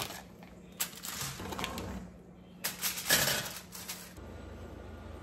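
Kitchen tongs clicking and tapping as mackerel fillets are laid on a foil-lined oven tray, with light crinkling of the foil. A little after four seconds in, this gives way to a steady low hum.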